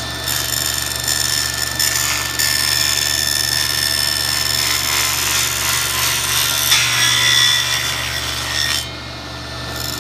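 Table saw running, its blade cutting a slot into 3-inch ABS Schedule 40 plastic pipe with a harsh, grinding hiss over the steady motor hum. The cutting grows louder about two seconds in and stops near the end, leaving the saw running.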